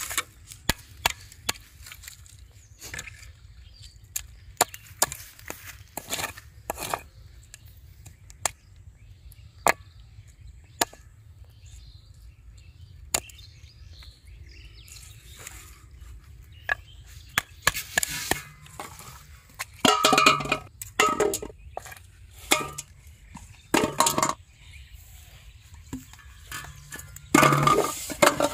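Snail shells being cracked with a wooden block on a board: a string of sharp knocks and cracks, irregularly spaced. Near the end come several louder, longer bursts of sound.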